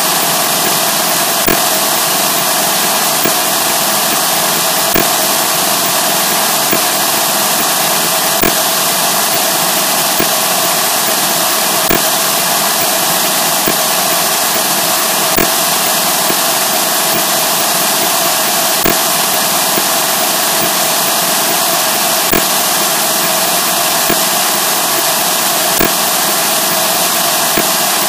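Loud, steady harsh noise like heavy static, with a faint tick about every second and three-quarters.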